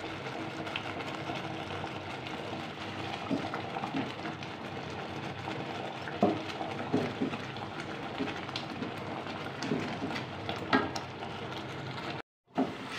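Thick mango pulp and milk mixture bubbling and spluttering in a steel pot as it cooks down. There is a steady hiss, with sharp pops every second or so as thick bubbles burst and splatter. The sound cuts out for a moment near the end.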